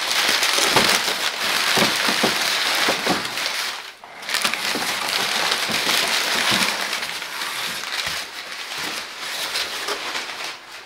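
Crumpled brown packing paper rustling and crinkling as long lengths of it are pulled out of a cardboard box, with a short break about four seconds in.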